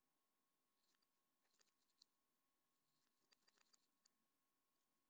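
Near silence: faint room tone with a few light, sharp ticks scattered through it, most of them in a quick cluster a little past the middle.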